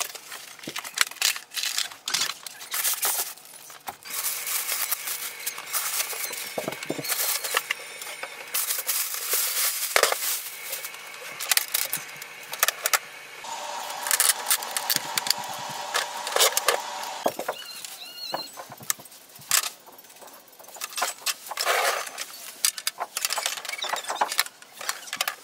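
Unpacking a new inkjet printer: cardboard inserts scraping and sliding out of the box, packing material crinkling, and orange plastic packing retainers pulled off. It comes as an irregular run of short clicks, knocks and rustles.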